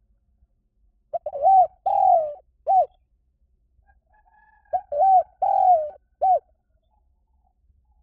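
Spotted dove cooing: two phrases of about four low coos each, a couple of seconds apart, the call used as a decoy to draw in wild doves.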